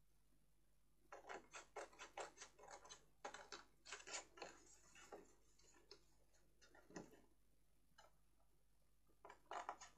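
Small scissors snipping into cardstock: a quick run of short, faint snips for about four seconds starting about a second in, then a few scattered snips.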